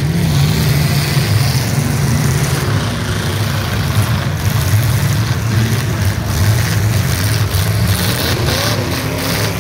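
Several demolition derby cars' engines running and revving at once, a loud, steady low rumble that swells and dips.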